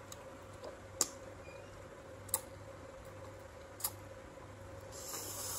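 Crisp crunches of firm raw fruit being chewed: three sharp crunches about a second and a half apart, then a soft hiss near the end.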